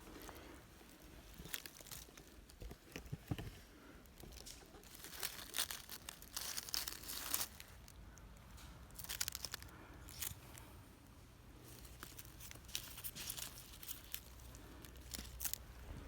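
Irregular rustling and crackling in short clusters with quiet gaps between, like dry material being crumpled or pushed through; a faint low rumble joins about ten seconds in.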